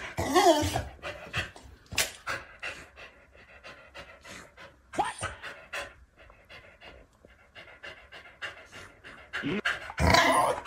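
Corgi panting with its mouth open, a run of quick noisy breaths, with a louder burst of sound about ten seconds in.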